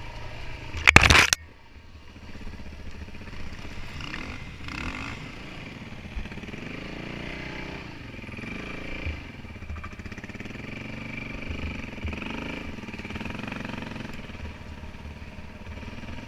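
Kawasaki KLX400 dirt bike's single-cylinder four-stroke engine heard from on board, revs rising and falling again and again as the rider works the throttle on the trail. About a second in there is a brief, loud rush of noise.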